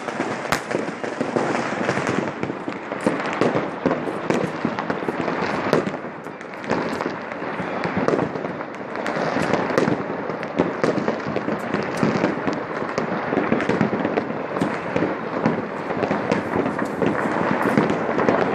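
Many firecrackers and fireworks going off at once across a town: a continuous crackle of overlapping bangs and sharp pops, with no break.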